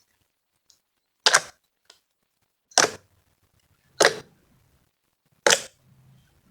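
Fluffy slime being squeezed and poked by hand, giving four sharp crackling pops about every second and a half, with faint clicks in between.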